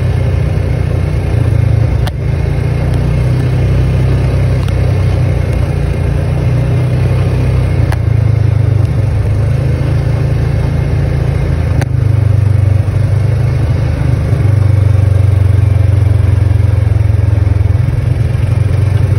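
Engine of a Polaris Ranger side-by-side droning steadily while driving at road speed, heard from inside the open cab, with a few sharp clicks and rattles.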